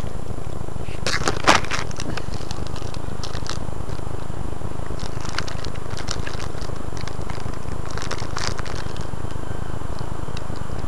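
A steady low rumble with scattered crackles and clicks in short clusters; the sharpest is about a second and a half in.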